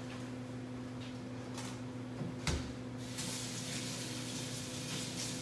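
Kitchen tap turned on about three seconds in, water running into the sink for hand-washing, after a single knock just before. A steady low hum lies under it all.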